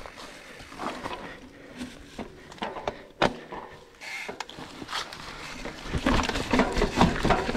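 Knocks and rattles of a mountain bike and shoes on a rocky trail: sparse at first with one sharp click about three seconds in, then busier clatter from about six seconds in.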